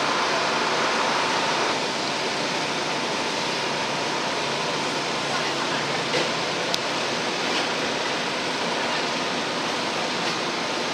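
Steady rushing hiss of ambient noise with no distinct events; a faint steady tone under it stops about two seconds in, and there is a faint click near seven seconds.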